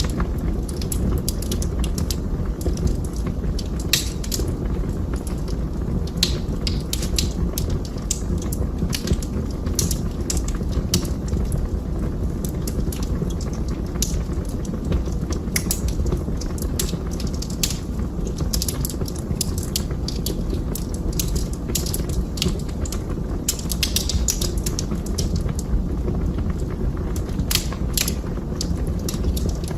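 Wood fire burning in a fireplace: a steady low rush of flames with frequent, irregular sharp crackles and pops from the burning wood.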